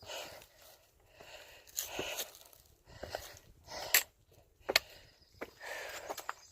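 A hiker's footsteps scuffing on a steep, rocky trail, uneven steps every second or two, with a few sharp clicks in the second half.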